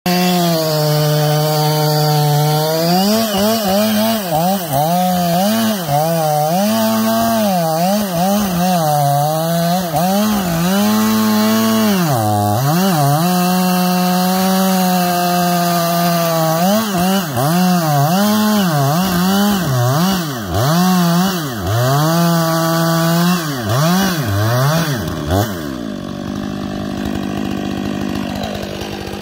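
Stihl MS500i two-stroke chainsaw cutting through a large ash log at full throttle, its engine pitch dipping and recovering again and again as the chain loads up in the cut. About 26 seconds in it drops to a lower, quieter steady running.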